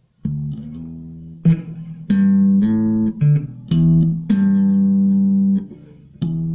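Electric bass guitar playing a simple slap lick: notes with sharp, bright slapped and popped attacks, some short and some held for a second or so, with the last note ringing on near the end.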